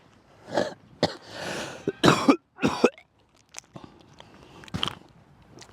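A young man in a coughing fit: about four harsh coughs in quick succession over the first three seconds, then only a few faint ticks.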